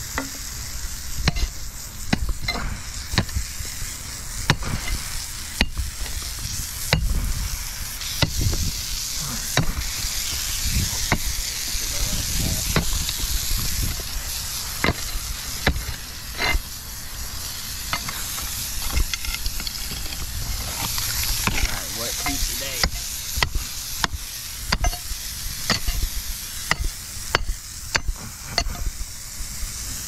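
Pick mattock striking into broken concrete rubble and packed dirt, sharp hits coming irregularly every second or two with crunching and scraping of gravel between them, over a steady high hiss.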